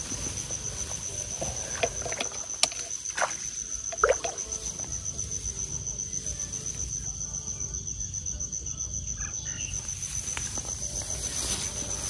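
An insect, cricket-like, trilling steadily on one high note with a fast pulse. A few short knocks or splashes come within the first four seconds.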